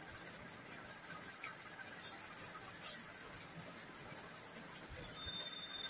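Faint soft rubbing of fingers mixing rice on steel plates while eating by hand, with a couple of light clicks.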